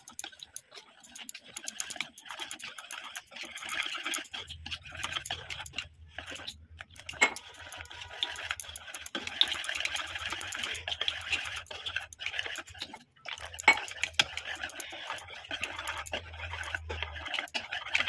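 Wire whisk beating thin gram-flour (besan) batter in a bowl: rapid, continuous scraping and clicking of the wires against the bowl, breaking off briefly a couple of times.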